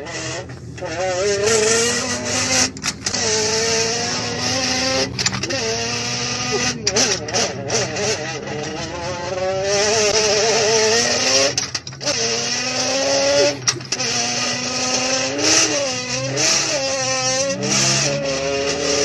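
A man imitating a racing car engine with his voice through a tube held in his mouth. The pitch climbs in long runs and drops at each pretend gear change, with a warbling burble near the end.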